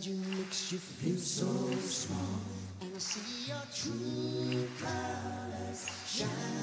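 Background song: voices singing held notes in harmony, with little or no instrumental backing.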